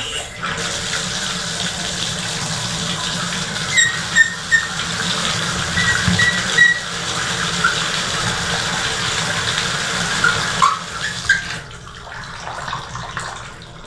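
Water running from a bathtub faucet and splashing into the tub, a steady rush with a few short squeaks about four and six seconds in. Near the end it drops to the quieter patter of a thin stream falling from the newly installed threaded tub spout, turned on to check it for leaks.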